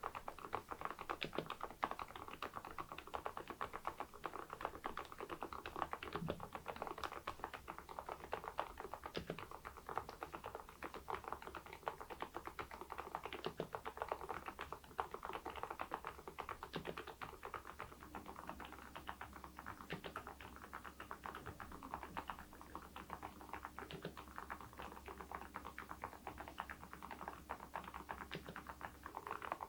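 Continuous typing on an Epomaker TH80 V2 Pro mechanical keyboard fitted with Kailh Deep Sea switches and ceramic keycaps: a dense, steady run of key strokes.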